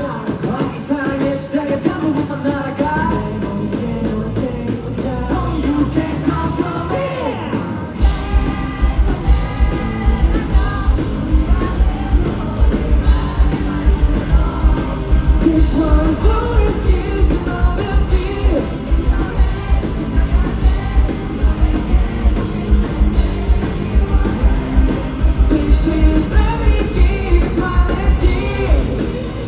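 Live rock band playing with a singer. About eight seconds in, the full band comes in with a heavy, steady kick-drum beat under the vocals.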